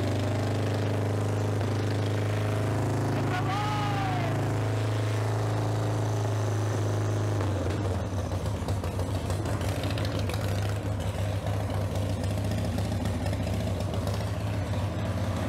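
A 1995 Harley-Davidson Sportster's air-cooled Evolution V-twin running just after its first start following a top-end rebuild. It is firing on both cylinders and, to the owner's ear, may be idling a little high. About halfway through, the steady note turns rougher and more uneven.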